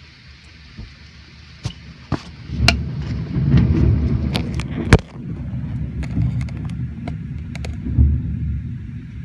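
Thunder: a few sharp cracks, then a heavy low rumble building about two and a half seconds in, with a loud crack near the middle and another swell near the end, over a steady hiss of rain.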